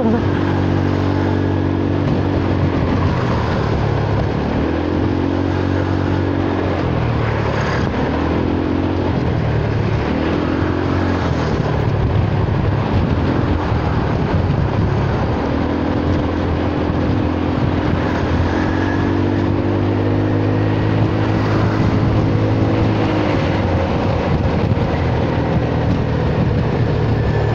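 Single-cylinder engine of a 2018 Honda Forza 300 scooter with an aftermarket exhaust, running under way. Its note climbs and drops back several times as the throttle is opened and eased, over a steady hiss of wind and road noise.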